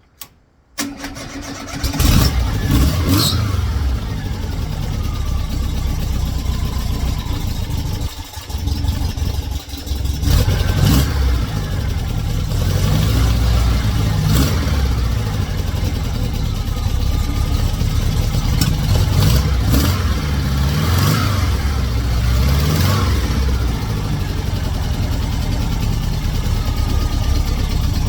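Freshly installed 2110cc air-cooled VW flat-four is cranked by the starter and catches about two seconds in, then runs loud and steady. It dips briefly twice around eight to ten seconds, and the throttle is blipped a few times.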